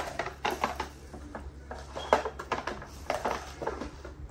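Instant noodle cups being handled and set down on a glass-topped table: irregular light knocks and packaging rustles, the sharpest knock a little after two seconds in.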